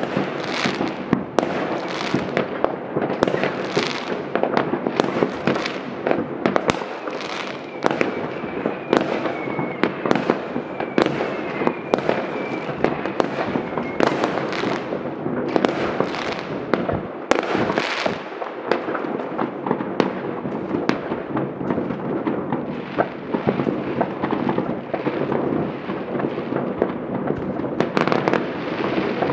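Fireworks going off at many points across a city at once: a dense, unbroken run of overlapping bangs and crackle, with sharp cracks standing out every second or so.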